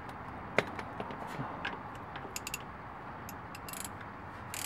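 Sharp metal clicks and clinks of a ratchet and socket being handled and fitted, the loudest about half a second in, with a quick run of three clicks past the middle and a brief jangle near the end.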